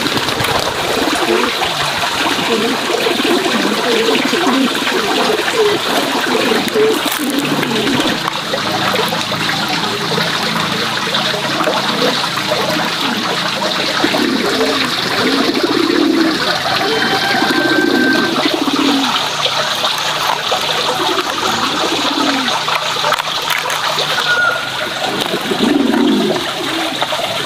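Steady rush of running water, trickling and splashing without a break, with two brief high peeps, one a little past halfway and one near the end.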